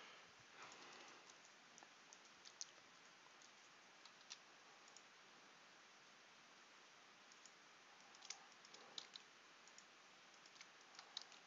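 Near silence with scattered faint clicks of a computer keyboard and mouse, a few at a time, thickest from about eight to eleven seconds in.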